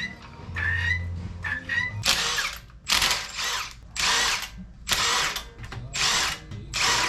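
Cordless impact wrench run in short bursts, about one a second, after a brief whine: spinning lug nuts off a wheel.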